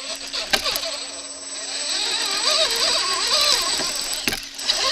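1/8-scale brushless Redcat RC crawler driving over rough ground: motor and gear whine that rises and falls with the throttle, with gear clatter and two sharp knocks, one about half a second in and one near the end.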